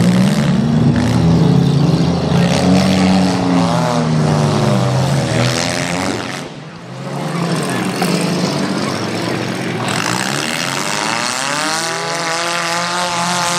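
Demolition derby cars' engines revving, rising and falling in pitch as the cars manoeuvre, with a brief lull about six and a half seconds in.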